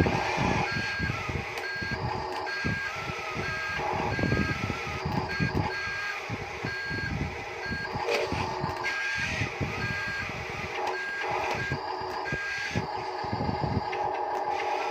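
Reverse-warning beeper of a toy RC construction truck, beeping about twice a second and stopping near the end, over a steady mechanical whine and scattered low knocks.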